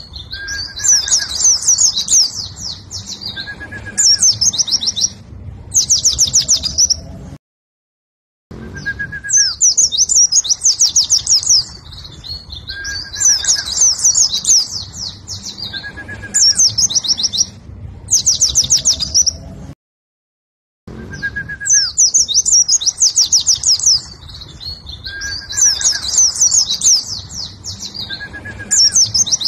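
A white-eye (pleci) sings in bursts of very fast, high-pitched rattling trills, one phrase after another: the fierce, rapid 'ngentrok' song of a bird in fighting form. The sound cuts to dead silence for about a second twice.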